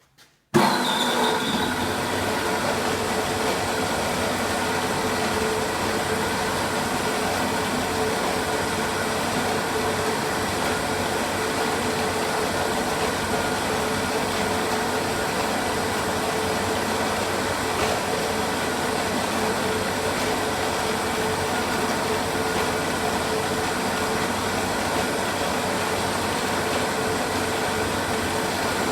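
TChPA semi-automatic frame-saw sharpening machine switched on about half a second in, then running steadily with an even mechanical hum.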